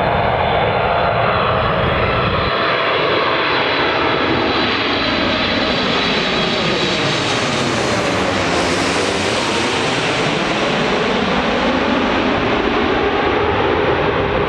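Boeing 747-8I's four GEnx jet engines on landing approach, passing low directly overhead: a loud, steady jet roar with a high fan whine as it comes in. The hiss is brightest as it passes over just past halfway, then dulls as it moves away.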